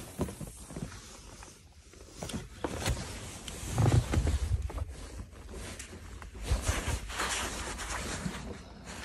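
Irregular low thumps and rustling, the sound of a phone and clothing being handled near the microphone, with a longer brighter rustle for a couple of seconds near the end.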